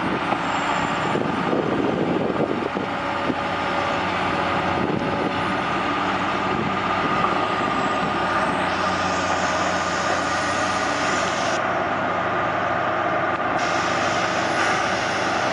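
Heavy diesel machinery running steadily under load as a large tracked excavator hauls a small crawler dozer out of a muddy ditch, with a faint high steady tone over the engine noise. A few sharp knocks in the first few seconds.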